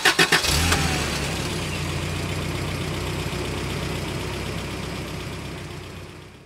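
Engine sound effect: a quick run of sharp clattering clicks as it fires up, then a steady low idle that fades out toward the end.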